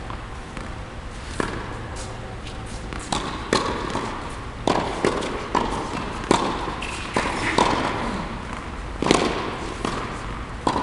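Tennis balls being struck with rackets and bouncing on an indoor hard court: sharp, irregular knocks, each ringing in the echoing hall, over a steady low hum.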